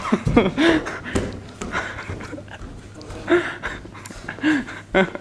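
Short, breathy voice sounds from people, a few seconds apart, with a few sharp knocks between them.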